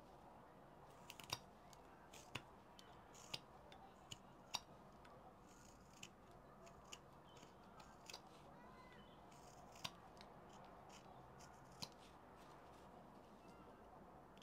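Carving knife slicing small chips off a wooden block by hand: a string of faint, crisp snicks at irregular intervals, about a dozen in all.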